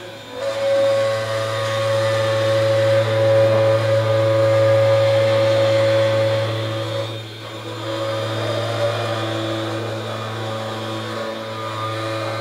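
Edge-rounding milling machine cutting a 2 mm radius along the edge of a steel plate: a steady motor hum with a whine over it. It rises about half a second in as the cutter bites and eases briefly about halfway through.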